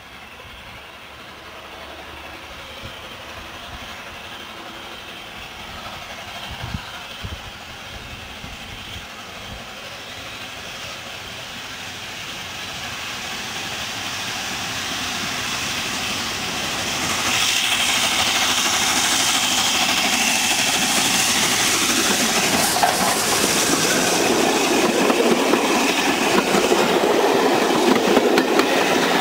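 LNER A4 Pacific 60019 Bittern, a three-cylinder steam locomotive, working a train toward the listener and getting steadily louder. A little over halfway through it passes close by, and its coaches follow, rolling past with a fast clickety-clack of wheels over the rail joints.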